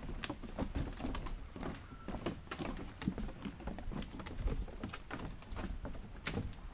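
Footsteps and handling noise from a camera carried on a walk: a run of irregular knocks and clicks, several a second, over a low rumble.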